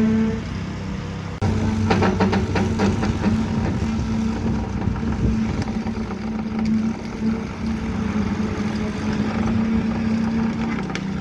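Engine of a heavy machine running steadily at a constant pitch, with a run of sharp metallic clicks and rattles about two seconds in and again near the end.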